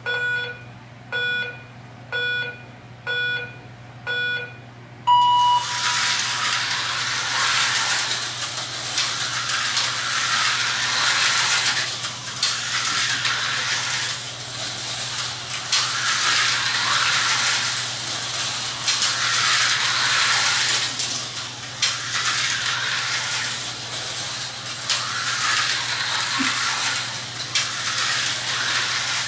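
Electronic race-start countdown: five short beeps about a second apart, then a longer, higher go tone. Vintage Tyco HO slot cars then race round the plastic track, their small motors whirring and rattling, the sound rising and falling as they pass.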